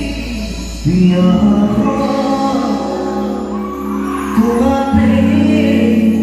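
Live band performance of an Assamese song: a male singer over electric guitars and keyboard, amplified through a PA system. The band gets louder about a second in.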